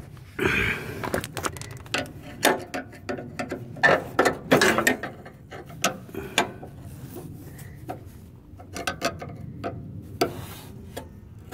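Screwdriver prying and scraping against the steel deck linkage rods of a Craftsman riding mower while a pin is pushed out. It makes a run of irregular sharp metallic clicks and knocks, with a scrape near the start.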